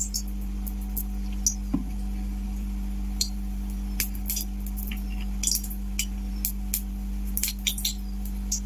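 A small pool of oil heating in an empty kadhai, giving off scattered small pops and crackles at irregular intervals, over a steady low hum.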